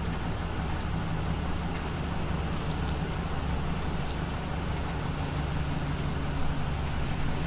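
Motor vehicle engine idling steadily, a constant low hum.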